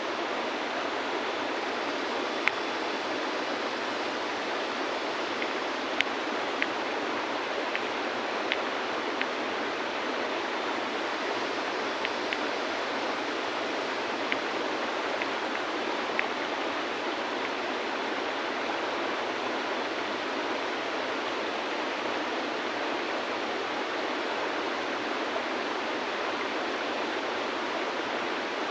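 River water flowing steadily over stones, with a handful of small sharp clicks of stones touching in the first half.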